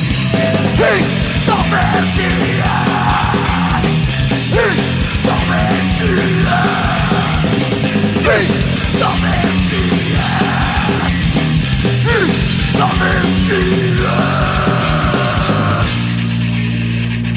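Loud live rock band playing an instrumental passage: distorted electric guitars with bending lead notes over bass and fast drums. About sixteen seconds in the drums stop and a low chord is left ringing.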